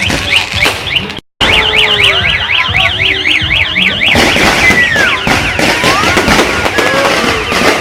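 Fireworks going off in a dense crackle of bangs and pops, with whistles gliding in pitch in the second half. For about the first half a shrill tone warbles rapidly up and down over the din, and the sound cuts out briefly about a second in.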